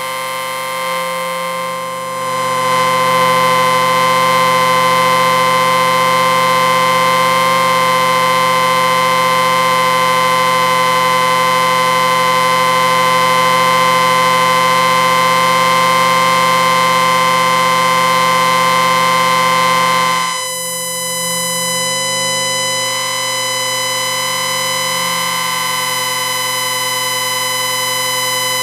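Sci-fi electric space station background effect: a steady electric hum of many held tones layered into one drone. It swells about two seconds in, holds, then drops back and shifts to a thinner texture about twenty seconds in.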